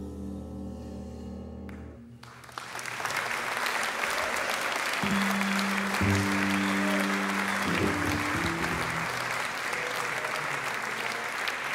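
A jazz ensemble's final chord is held low and steady, then stops about two seconds in. Audience applause follows and carries on, with a few held low instrument notes sounding through the clapping midway.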